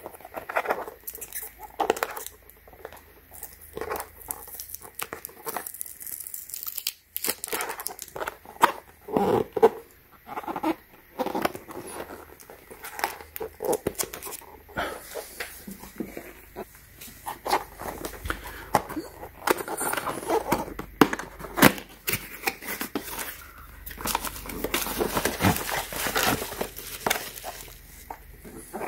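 Cardboard microphone box and its paper and plastic packing being handled and unpacked by hand: irregular crinkling and rustling with scattered light knocks and scrapes.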